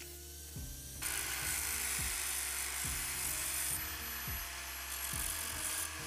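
Metal knife liner being sanded against a spinning sanding drum: a steady, loud rasping hiss with a faint high whine starts about a second in and stops just before the end. Background music with a steady beat plays throughout.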